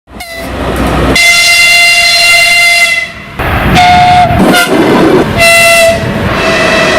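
Diesel locomotive horn (2TE25KM) sounding one long blast of about two seconds, followed by several shorter blasts at slightly different pitches, over the noise of the moving freight train.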